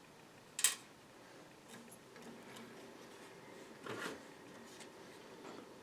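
Two sharp clicks of computer hardware being handled and fitted inside a PC case, one about half a second in and one about four seconds in, with a few faint ticks between.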